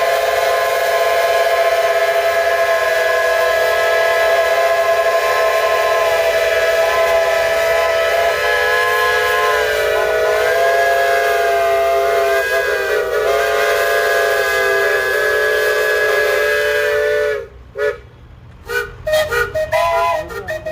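Several steam whistles blowing together in one long, loud, sustained chord, a few pitches wavering partway through. About 17 seconds in the chord cuts off suddenly, and a string of short whistle toots follows.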